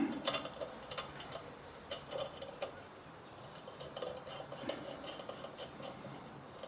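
Light metallic clicks and taps of a washer and new nut being fitted and spun on by hand onto a mower blade bolt.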